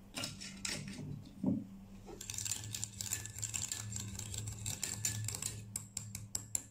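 Metal spoon whisking aloe vera gel and olive oil in a small ceramic bowl: quick clicking and scraping against the bowl's sides, starting about two seconds in after a few knocks as the bowl is picked up, and getting faster near the end. A steady low hum runs underneath.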